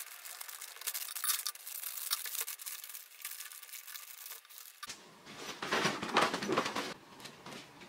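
Wrapping paper crinkling and tearing while a gift is wrapped by hand. About five seconds in this gives way to fuller, louder rustling of a fabric duffel bag and clothes being packed.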